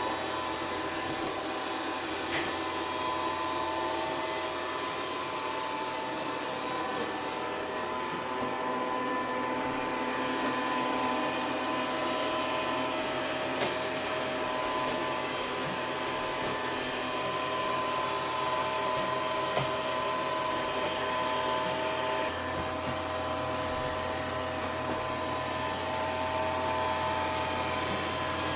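Deik robot vacuum cleaner running steadily, a constant motor hum and hiss with a thin whine, and a few faint clicks along the way.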